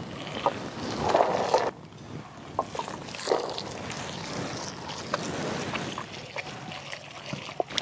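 Pomegranate arils being crushed under a heavy stone pestle in a stone mortar: a wet squelching and crunching, with scattered short knocks. A denser, louder stretch at the start cuts off sharply before two seconds in.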